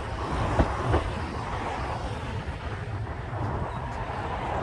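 Heritage double-decker tram running along the track: a steady low rumble with wind noise on the microphone, and two sharp knocks about half a second and a second in.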